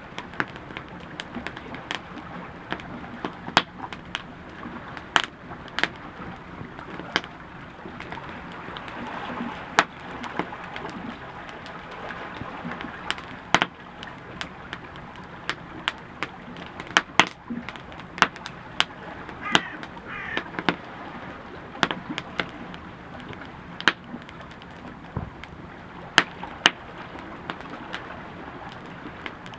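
Wood campfire crackling, with irregular sharp pops over a steady low hiss of flames.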